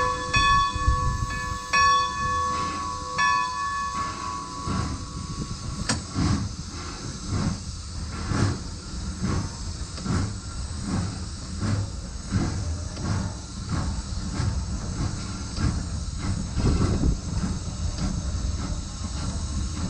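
Nevada Northern No. 40, a 1910 Baldwin 4-6-0 steam locomotive, moving slowly: its bell rings for the first few seconds, then steady slow exhaust chuffs with steam hiss carry on as it works along the track.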